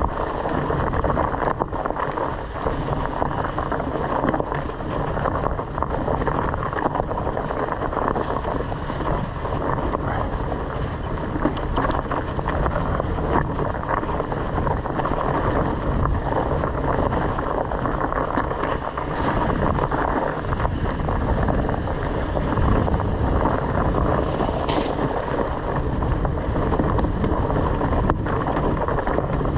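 Mountain bike rolling along a dirt trail covered in dry leaves: steady rushing wind on the camera microphone, with tyre rumble and small knocks and rattles from the bike over the rough ground.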